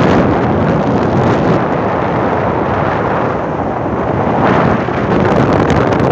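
Strong wind buffeting the microphone, a loud rough rush that swells in gusts, once right at the start and again about four and a half seconds in.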